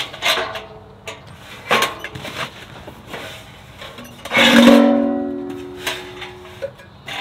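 Plucked acoustic guitar music, with several short sharp knocks as a stainless steel pellet fire pit is handled and set down in pieces. About four and a half seconds in, one strong note rings out and dies away over about a second.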